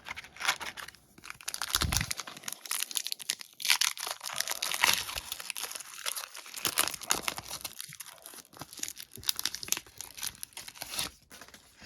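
A trading-card pack wrapper being torn open and crinkled by hand, with irregular crackling and tearing.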